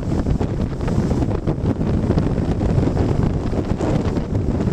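Tropical-storm wind buffeting the microphone in a steady low rumble, with storm surf breaking and washing against a stone seawall underneath.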